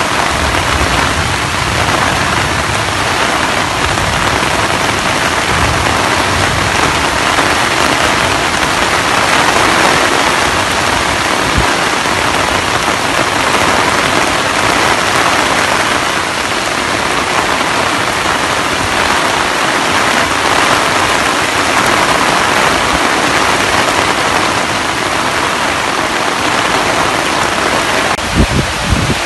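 Heavy rain falling steadily, a dense even hiss. A few low thumps near the end.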